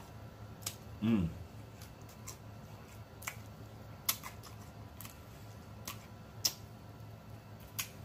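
Close-up mouth sounds of a person eating fried chicken by hand: scattered wet smacks and clicks of the lips and tongue, and one short falling "mmm" about a second in.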